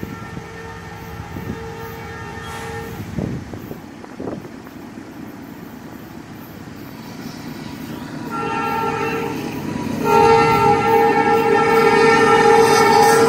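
CSX freight locomotive's multi-note air horn, from the lead unit CSXT CM44AH 7207, sounding for a grade crossing: a long blast, a shorter blast about eight seconds in, then a long blast, each louder as the train approaches, over a rising rumble from the train.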